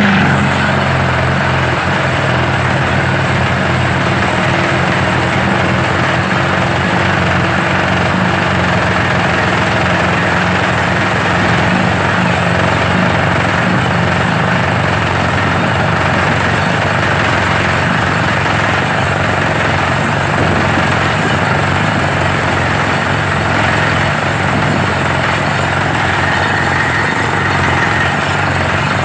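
Borewell drilling rig running steadily: a loud, even mechanical noise with a low engine hum and a thin high whine throughout.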